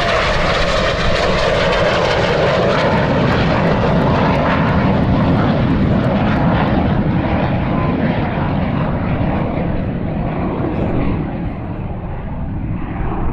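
Jet engine noise from a low pass of two Red Arrows BAE Hawk T1 jets, each with a single Adour turbofan. It is loud and steady, then fades somewhat over the last few seconds.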